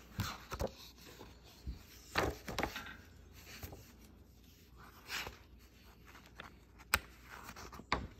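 Pages of a paper colouring book being handled and turned, making a few short soft paper swishes and rubs. Two sharp clicks come near the end.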